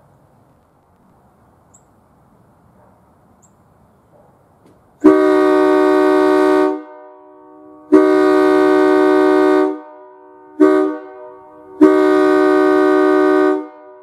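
Nathan AirChime K3LA three-chime locomotive air horn sounding four blasts, long, long, short, long, the standard railroad grade-crossing signal. Each blast starts abruptly as a full multi-note chord.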